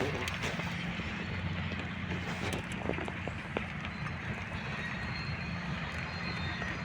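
A steady low mechanical hum, with a few faint clicks and knocks.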